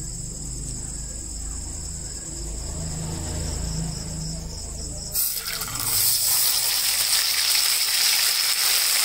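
Ground masala paste tipped into hot oil in a kadhai, which starts sizzling suddenly about five seconds in and keeps frying steadily. Before that, a steady high chirring of crickets over a low hum.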